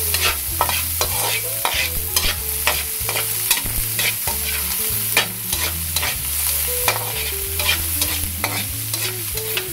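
A perforated metal skimmer scraping and clacking against a metal wok as diced onion and garlic are stirred, with the oil sizzling under them. The clacks come quickly and irregularly over a steady sizzle: onion and garlic being sautéed in oil.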